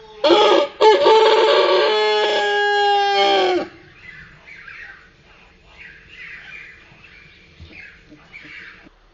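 A rooster crowing once, slowed down so the crow is drawn out and lower in pitch: a short opening note, then a long held note of about three seconds that cuts off. Fainter chirps or clucks follow.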